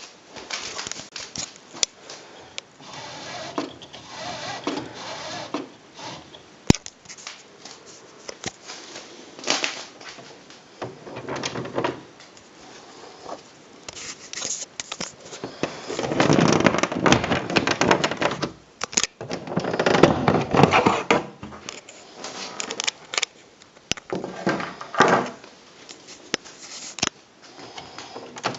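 Smith Corona PWP 3600 electronic word processor typewriter in use: scattered clicks and knocks with several longer bursts of mechanical clatter, the two loudest a little past the middle.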